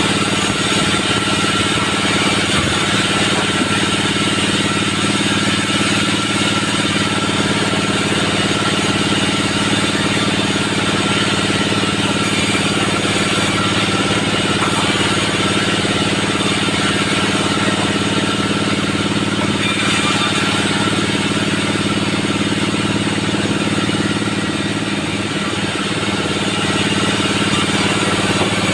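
Band sawmill machinery running steadily, a constant loud mechanical drone at an even pitch that dips a little near the end.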